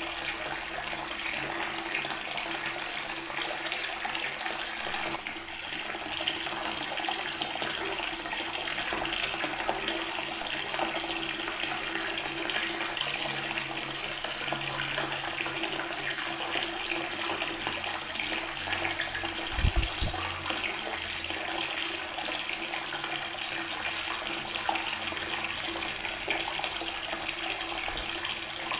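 Water running steadily from a tap and splashing onto natural stone. A brief low thump comes about two-thirds of the way through.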